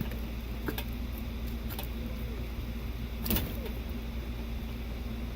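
A few light clicks, the loudest a little over three seconds in, and a couple of short squeaks as the old plastic blade is fitted to a new bathroom exhaust fan motor, over a steady low hum.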